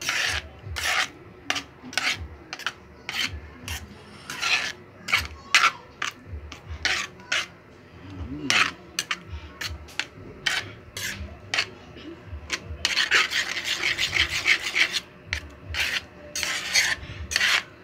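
A metal cooking utensil scraping and knocking against a metal pan while stirring food, in irregular strokes about once or twice a second, with denser runs of scraping late on.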